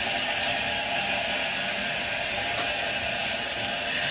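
Shower running steadily: a constant hiss of spraying water.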